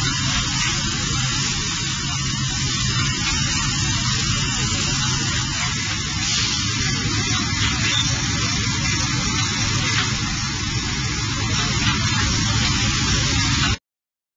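Laser cleaning machine ablating residue from baking-oven metal: a steady hiss with a low hum underneath, which cuts off suddenly near the end.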